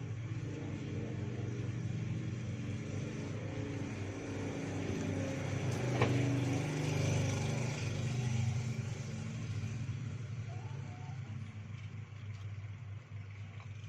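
A motor running steadily with a low hum, swelling louder through the middle and easing off near the end, with one sharp click about six seconds in.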